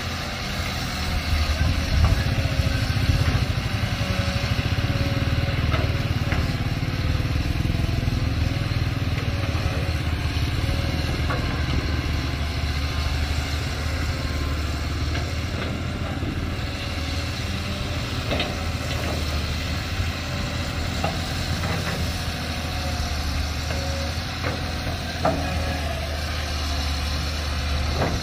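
Hitachi Zaxis 200 hydraulic excavator's diesel engine running steadily as the machine works its boom and bucket, with a few faint knocks in the second half.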